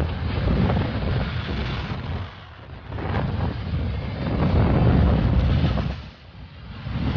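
Wind buffeting the microphone of a moving vehicle, a low rumbling noise with road noise beneath it, easing off briefly twice, about two and a half and six seconds in.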